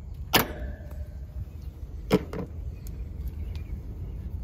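Metal clanks from locking pliers and a steel mounting strap on an AC condenser's capacitor bracket: one sharp clank that rings on briefly about a third of a second in, then two quicker clicks around two seconds in, over a low steady rumble.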